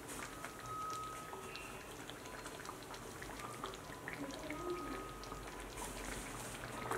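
Chicken-feet gravy simmering in a wok, bubbling with many small pops.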